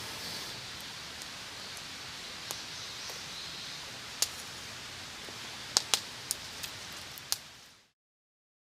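Wood fire crackling in a fire pit: a steady hiss with sharp pops, several in quick succession in the second half, before the sound fades out.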